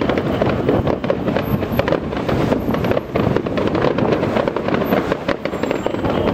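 Aerial fireworks bursting many at a time, a continuous barrage of overlapping bangs and crackling from glitter-star shells.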